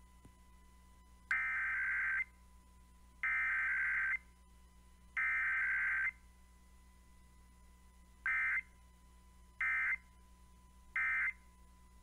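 Emergency Alert System SAME data tones from a radio station's Required Weekly Test: three long buzzing bursts of digital data, the message header, then three short bursts, the end-of-message code. No attention tone sounds between them.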